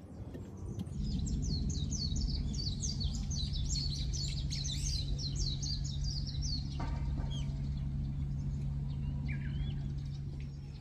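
A small songbird singing a fast run of high, down-slurred notes, about four a second, for several seconds, then a few shorter calls. Under it, a steady low hum and a low rumble.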